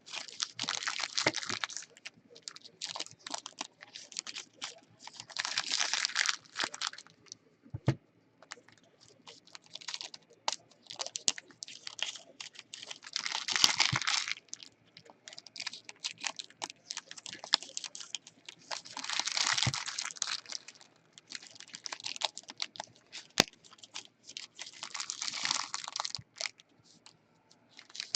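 Typing on a computer keyboard in short runs of rapid key clicks, with sparser single clicks between the runs.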